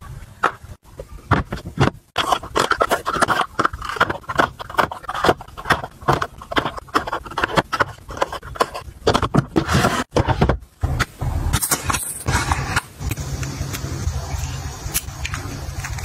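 Cardboard toothpaste boxes being handled and set down into a plastic bin: a quick run of small taps, knocks and scrapes with cardboard rustling between them. A steadier hiss with a low hum takes over for the last few seconds.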